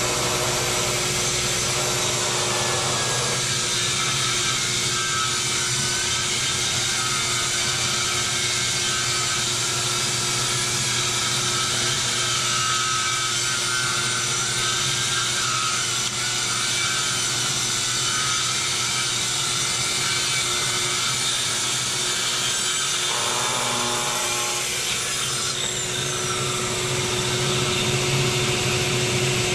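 Festool TS75 plunge-cut track saw ripping through a heart pine plank just over two inches thick, with a shop vacuum running on its dust port. Near the end the saw's high whine falls away while the vacuum keeps going.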